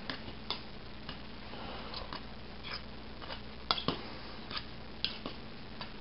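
Metal fork clinking and scraping against the inside of a small stainless steel pot while stirring ramen noodles: a scatter of irregular light clicks, with one louder clink a little before four seconds in.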